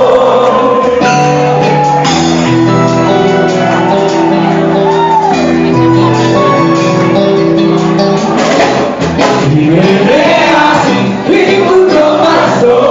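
Live rock band playing a song, with a voice singing over held chords.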